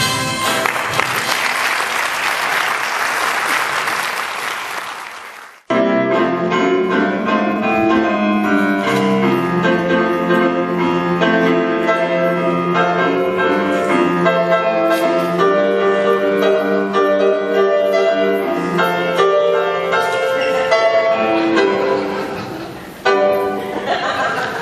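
Audience applauding, fading down over about five seconds and cut off abruptly. It is followed by lively piano-led stage-musical accompaniment.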